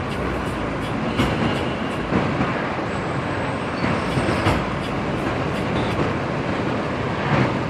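Steady road and engine noise inside a moving car, with occasional knocks and rattles from bumps in the road.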